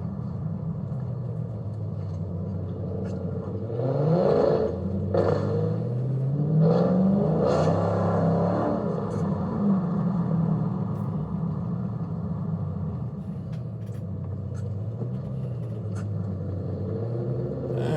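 Dodge Scat Pack's 6.4-litre HEMI V8 running on the road, rising in pitch as it accelerates about four seconds in and again a few seconds later, then settling back to a steady cruise.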